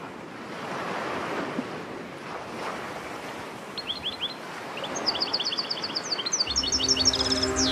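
Surf washing on a shore as a steady hiss, with a small bird singing quick chirping notes from about four seconds in that speed up into a rapid trill. Near the end, music fades in with sustained low notes.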